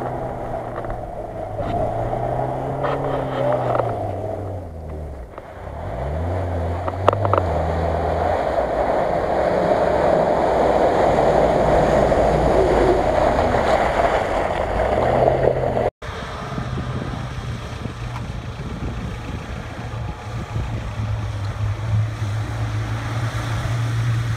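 Off-road 4x4 engines working through a flooded, muddy field with water splashing: a dark SUV's engine revs up and down, then its splashing grows loud as it pushes through the mud. After a sudden break about two-thirds in, a red Lada Niva runs steadily through shallow water.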